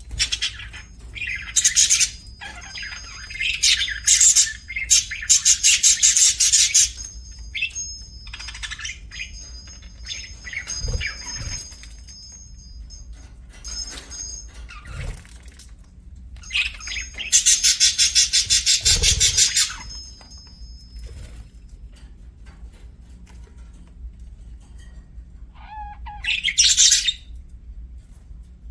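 Budgerigars chirping and chattering in bursts of rapid high chirps, with two long loud stretches of several seconds each and a shorter burst near the end, and quieter calling in between.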